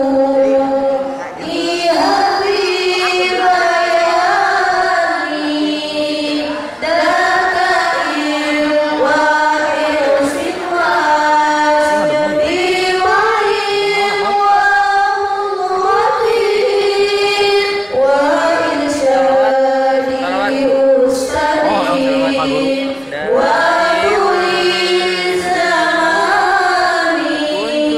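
A group of girls singing nadom (sung Arabic verse) together in long melodic phrases, with short breaks for breath between them.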